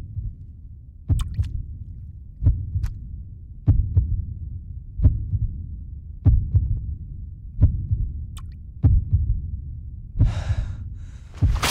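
Slow, deep heartbeat sound effect, one dull thump about every 1.3 seconds, with a short breath-like rush near the end.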